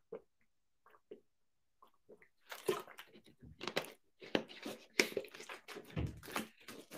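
A few swallowing gulps from a plastic drinks bottle, then the thin plastic bottle crackling and clicking as it is handled close to a clip-on microphone, from about two and a half seconds in.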